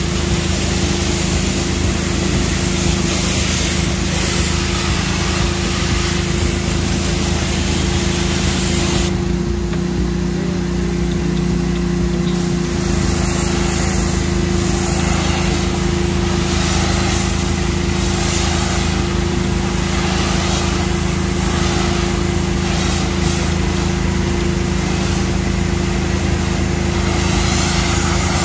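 Pressure washer running steadily on its small engine, with the hiss of its wand spraying water over a foam-covered car. The spray stops about nine seconds in and starts again about three seconds later, while the engine keeps running.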